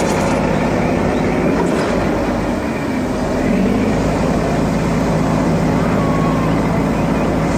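Heavy construction-vehicle engine running steadily with a dense, constant rumble.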